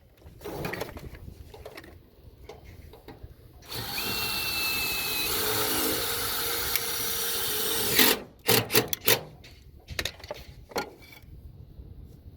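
Power drill running steadily for about four seconds and then stopping abruptly, followed by a few sharp knocks.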